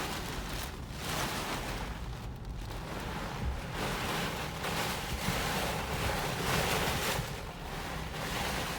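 Storm wind gusting hard, a rushing roar that swells and eases every second or two, with deep buffeting of the wind on the microphone.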